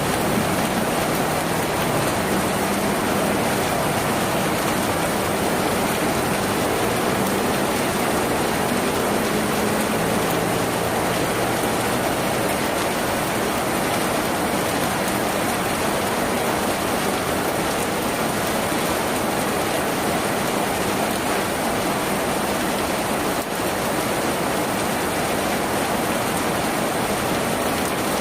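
Steady rain falling on a tin roof, an even, unbroken hiss of drops.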